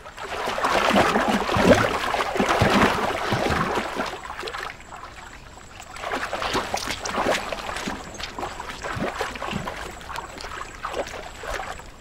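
Crocodiles splashing and sloshing in shallow water as they twist and roll to tear pieces from a hippo carcass. The sound is loudest over the first four seconds, dips, then comes back in uneven surges.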